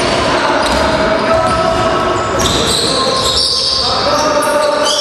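Basketball being dribbled on a hardwood-style gym floor during play, with sneakers squeaking and players calling out in the hall.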